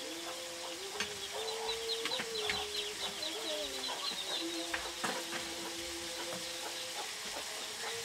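Shrimp sizzling in hot oil in a wok. Over the sizzling come long drawn tones that waver in pitch, and a fast run of high chirps in the first few seconds, from birds such as chickens.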